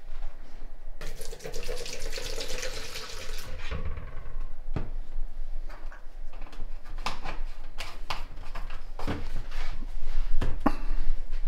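Liquid sealer poured from a plastic jug into a plastic mixing cup for a couple of seconds, followed by scattered knocks and clicks of the jug and cup being handled.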